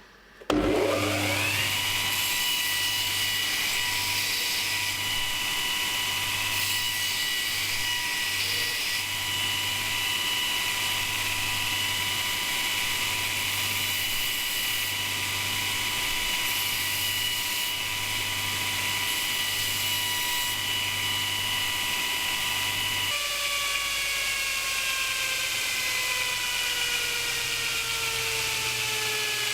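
Electric power tool motor spinning up about half a second in to a steady high whine and running steadily. Near the end its pitch falls steadily as it winds down.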